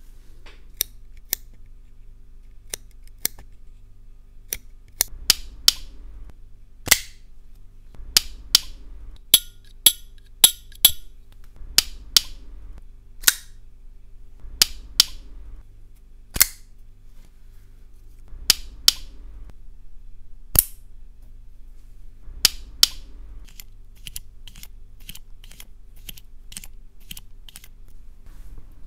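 Folding pocket knives being flicked open and snapped shut by hand: the blades and locks click and clack, a string of sharp metallic clicks at uneven intervals, several of them loud.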